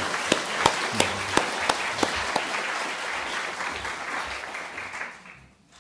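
Audience applauding, with one pair of hands clapping close to the microphone about three times a second. The applause dies away near the end.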